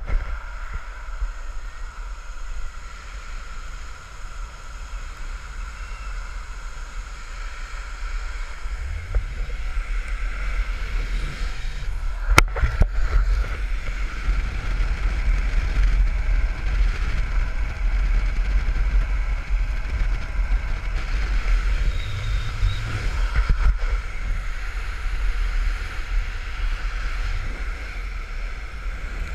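Wind blowing over a GoPro's microphone and longboard wheels rolling on asphalt at downhill speed: a steady low rumble with a steady higher hum above it. There is one sharp knock about twelve seconds in.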